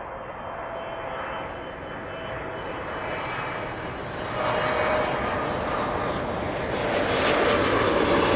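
Boeing 777 freighter on final approach with gear down. The jet noise of its twin GE90 engines, with a steady whine on top, grows steadily louder as it comes in close overhead.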